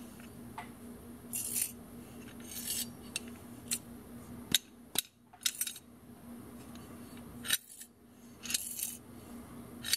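Ratchet handle from a Japanese hex drive socket set being worked in short bursts of scratchy metallic clicking, several times over: the sound of a broken ratcheting tooth mechanism.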